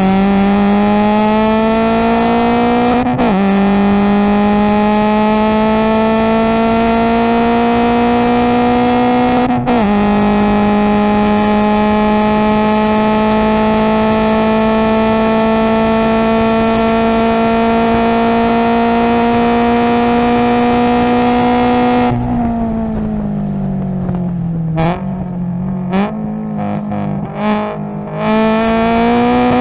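Subaru BRZ race car's 2.0-litre flat-four engine heard from inside the cabin at full throttle. It climbs in pitch with upshifts about 3 and 10 seconds in, then makes a long, slowly rising pull in top gear. About 22 seconds in the throttle lifts for braking, and the revs fall with several sharp throttle blips on downshifts to second before it pulls hard again right at the end.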